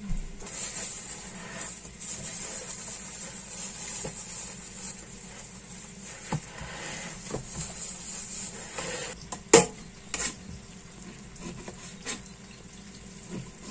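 Meat being cut and handled on a cutting board, over a steady kitchen hiss; a few sharp knocks of the knife and board come about two-thirds of the way through.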